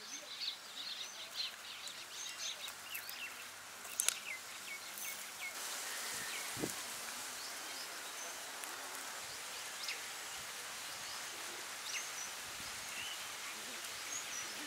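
Outdoor ambience of small birds chirping in short, repeated calls, most busily in the first few seconds, over a steady hiss that grows a little louder about halfway through. There is one sharp click about four seconds in.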